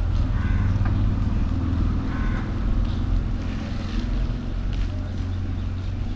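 Steady low rumble of city road traffic with wind on the microphone, heard from a moving bicycle.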